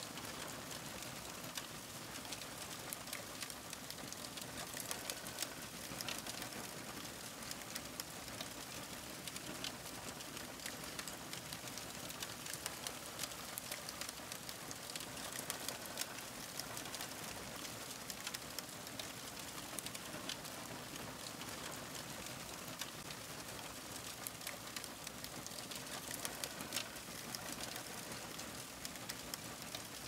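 Campfire crackling: a steady hiss of burning with frequent small, sharp pops and snaps.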